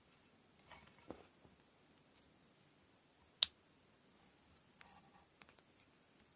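Quiet handwork while preparing cotton thread for kumihimo braiding: soft rustling of thread, one sharp click about three and a half seconds in, then a few light taps and ticks near the end.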